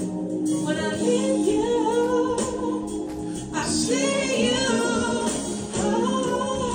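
A female R&B singer performing live into a microphone with band accompaniment, her voice sliding through vocal runs and held notes over a sustained backing.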